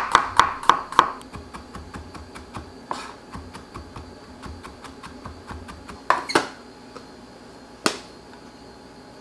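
Chef's knife mincing garlic on a wooden cutting board: loud, even strikes at about four a second for the first second, then lighter, quicker taps for several seconds. Near the end there is one sharp clink of a metal spoon against a small glass bowl.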